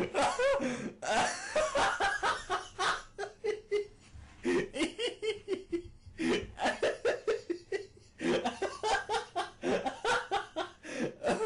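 A person laughing hard and at length, in rapid fits with short pauses for breath.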